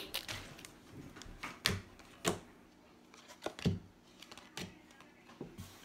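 Trading cards being flipped through by hand and laid down on a wooden table: a few scattered light taps and flicks with quiet between.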